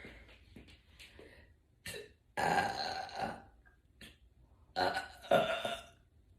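A woman belching: two long burps, the first about two and a half seconds in and the second near five seconds, the second with a double push, with short faint sounds before and between them.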